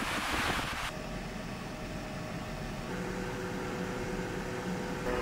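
Wind buffeting the microphone over beach surf for about the first second, then a sudden cut to a steady mechanical hum inside a vehicle cab, made of a few steady tones, with a stronger tone joining about three seconds in.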